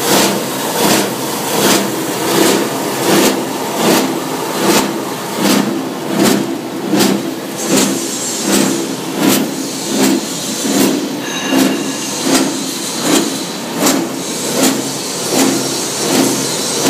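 Small copper wire granulator running. Its sound swells and falls in an even beat a little faster than once a second, with sharp clicks throughout.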